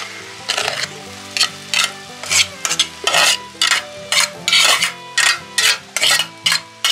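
A metal spoon stirring ginger-mango pieces into hot spiced oil in a pot: short scraping strokes about three times a second. Background music plays underneath.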